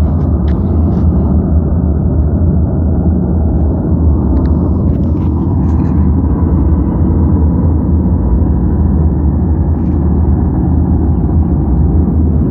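Loud, steady low rumbling drone with no breaks, presented as an unexplained strange sound heard outdoors.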